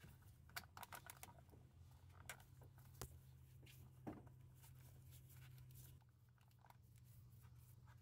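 Faint scattered clicks and small plastic snaps as a clip remover tool pries the plastic retaining clips off an engine wire guide, the two sharpest clicks about three and four seconds in.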